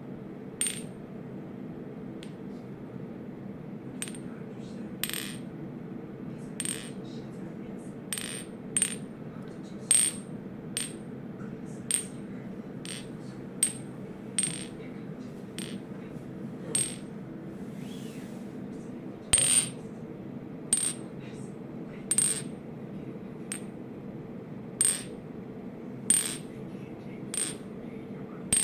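Glass being tapped or clinked repeatedly, about twenty light strikes at irregular intervals of roughly one second, each ringing briefly at a high pitch. A steady low hum runs underneath.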